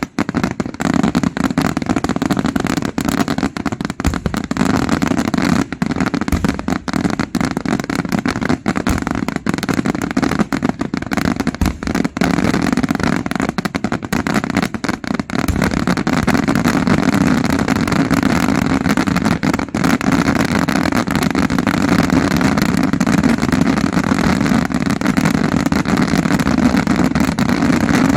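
Daytime fireworks firing a dense, continuous barrage of rapid bangs and crackles with no pauses. After about halfway the separate bangs merge into a steadier rumble.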